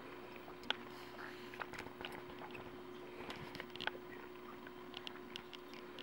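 Cockatiel's beak nibbling at the camera right beside the microphone: scattered small, irregular clicks and ticks over a faint steady hum.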